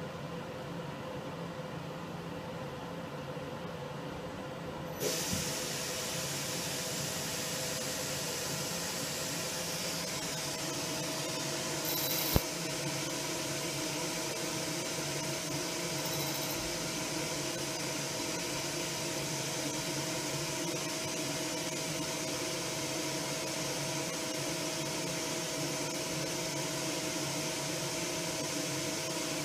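Leadwell V-50L vertical machining centre running its automatic tool-setting cycle. A steady machine hum is joined suddenly about five seconds in by a hiss, and there is a single sharp click about twelve seconds in.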